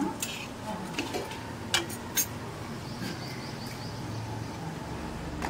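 A few sharp metal clinks of a steel spatula and utensils against an iron tawa griddle. There is a brief run of high bird chirps about three seconds in, and a low engine hum begins near the end.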